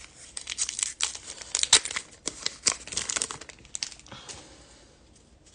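Foil trading-card pack crinkling and tearing as it is ripped open by hand, a run of sharp crackles that die down after about four seconds as the cards come out.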